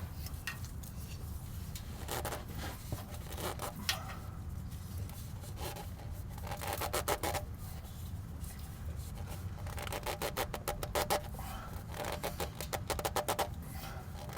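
Rag-wrapped hand rubbing and scraping on an oil filter canister as it is twisted hand-tight, in several scratchy bursts a second or so long, over a steady low hum.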